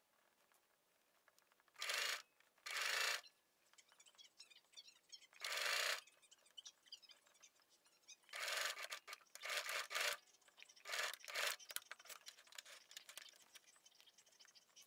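Gathered tulle fabric rustling and rubbing as it is handled and pushed along, in about six short scratchy bursts with faint quiet between them.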